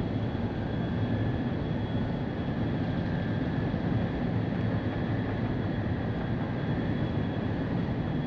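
A boat's motor running steadily: an even low hum with a faint, steady high whine over it.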